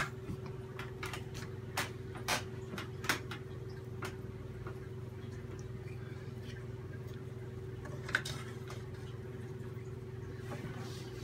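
Wooden spoons working fresh butter in a metal colander to press out the buttermilk, with a handful of sharp knocks and clicks, the loudest right at the start. A steady low hum runs underneath.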